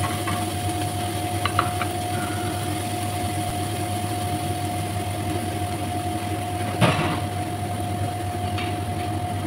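Steady machine drone with a constant whine running under a kitchen scene, with a few light clicks about one and a half seconds in and a single sharper knock about seven seconds in.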